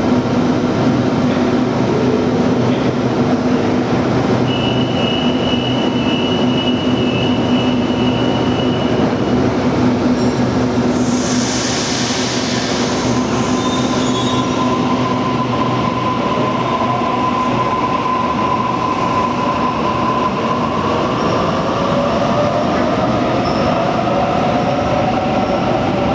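Double-deck electric suburban train in an underground station, running with a steady hum. A high steady squeal comes a few seconds in, and a burst of air hiss about eleven seconds in. Slowly rising motor whines follow as the train pulls away.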